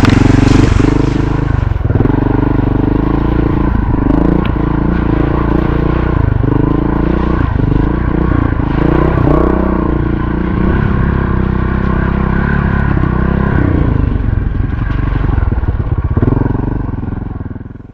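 Montesa Cota 4RT trials motorcycle's single-cylinder four-stroke engine running while ridden, its pitch dipping and rising over and over with the throttle. The sound fades out near the end.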